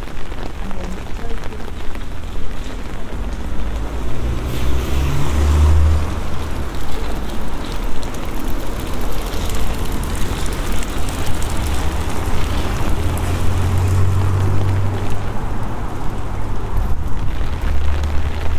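Street noise in steady rain: a constant hiss of rain and wet-road noise, with a car's tyres swishing past on the wet tarmac around the middle, and deep low rumbling that comes and goes.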